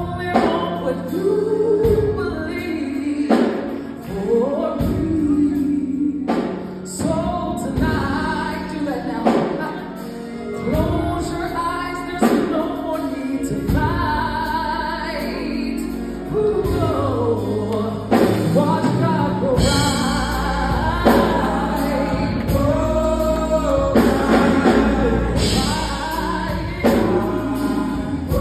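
A woman singing a gospel song live into a microphone, with long sliding runs and held notes, over band accompaniment and backing voices. A deeper bass line comes in louder about two-thirds of the way through.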